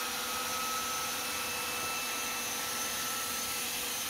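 Electric angle grinder running steadily with a constant whine, grinding out old mortar joints from a brick wall for repointing.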